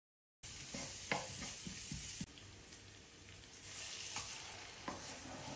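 Chopped onions sizzling in hot ghee in a frying pan, stirred with a wooden spoon that knocks lightly against the pan a few times. The sound starts abruptly about half a second in.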